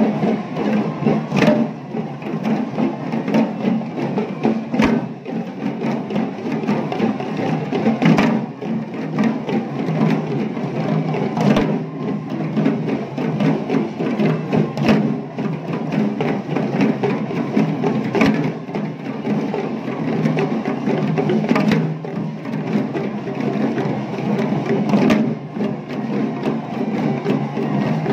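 A troupe of hand-played, waist-slung traditional Sri Lankan drums beating out a fast, dense rhythm. A sharp, loud accent stroke comes about every three and a half seconds.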